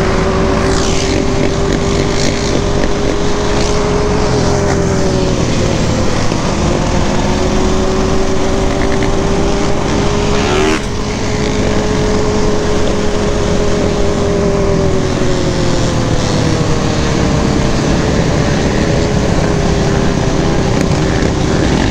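Quad (ATV) engine running under way at a steady cruise, its pitch drifting slowly up and down with the throttle, with wind on the microphone. The tone breaks briefly and jumps about eleven seconds in.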